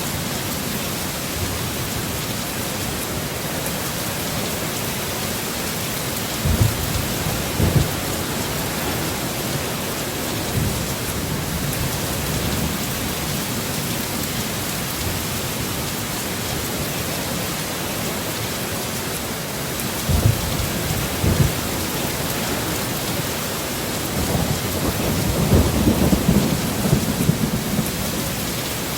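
Heavy storm rain falling steadily, with short low rumbles of thunder about six and eight seconds in and again around twenty seconds, and a longer rumbling stretch near the end.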